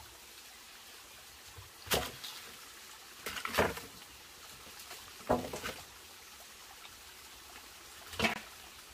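A stream trickling steadily, broken by four short, sharp knocks of wood, spaced irregularly.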